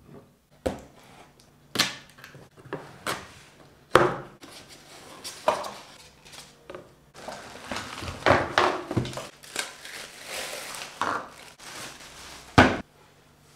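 A rice cooker being unpacked from its cardboard box: its glass lid and stainless steel body knock and thump against the box and table several times, the loudest about four seconds in and again near the end. In the middle there is a few seconds of rustling and crinkling from the styrofoam and plastic wrapping.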